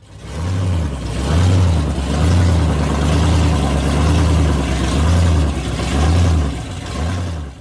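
Muscle car engine revving over and over, its deep rumble rising and falling in repeated swells.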